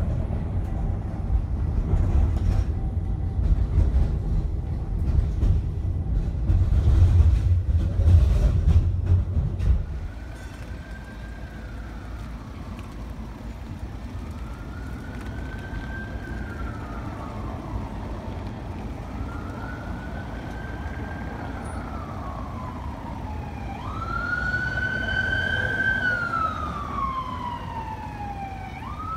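Low rumble of a moving tram heard from on board, cutting off about a third of the way in. Then an ambulance siren wails in slow rising-and-falling sweeps about every four seconds, getting louder near the end.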